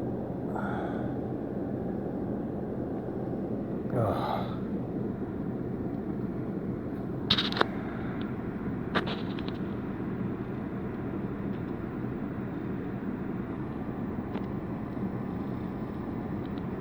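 Steady low hum inside a vehicle, from its running engine or fan. Over it come a couple of soft breathy exhales and two sharp clicks, about seven and nine seconds in.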